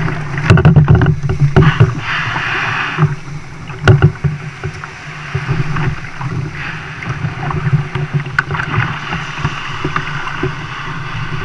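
Small shore-break waves washing and splashing around a fishing kayak's hull as it is brought in through the surf to the beach, swelling and easing with each wave. Scattered sharp knocks of the hull and its gear punctuate the wash.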